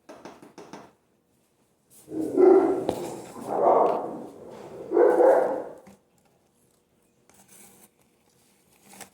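A dog barking three times, each bark drawn out and under a second long, with short gaps between them.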